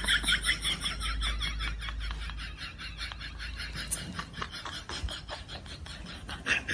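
An animal making a fast series of short sounds, several a second, loudest at first and then fading.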